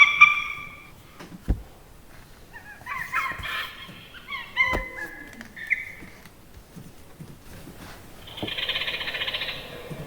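Electronic children's sound book playing recorded zoo-animal calls from its small speaker as its buttons are pressed: a pitched call at the start, a run of chirping, gliding calls in the middle, and a rough, hissing call near the end, with soft clicks of the buttons in between.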